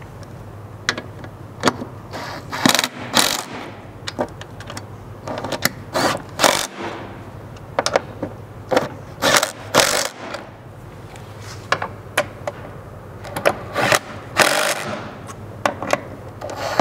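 Cordless impact driver with a 1/2-inch socket running in short, repeated bursts, tightening the 5/16 bolts and serrated flange nuts of the rock slider's pinch seam bracket, with clicks of the tool and hardware between the bursts.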